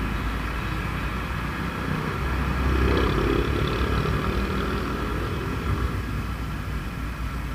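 Motorcycle running on the move in traffic, a steady low rumble with road noise, swelling briefly about three seconds in.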